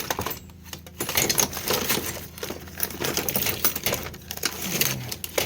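Rapid, irregular metallic clicking and clattering of hand tools working on the truck's electrical connections.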